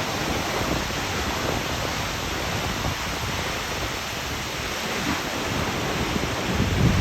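Steady rush of a waterfall, an even hiss of falling water. Near the end, wind buffets the microphone with a low rumble.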